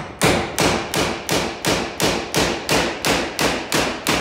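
Fast, steady hammer blows, metal on metal, about three and a half a second, each with a short ring: a hammer driving a steel tool against a rust-seized bolt to break it off.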